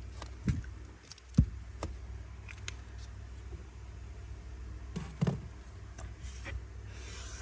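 Scattered clicks and knocks of metal Zippo lighters being handled and set down, with a heavier thump about one and a half seconds in, over a low steady hum.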